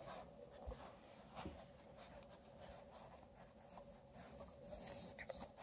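Bluetick Coonhound puppies scrabbling and rustling on a fabric blanket as they wrestle, faint and scratchy; about four seconds in come a few short, high-pitched squeaks.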